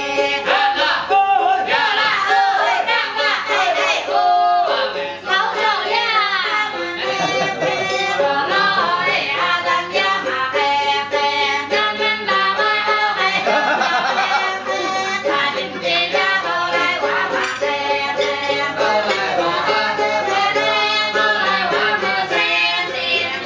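Music with a woman's singing voice, a continuous melodic song.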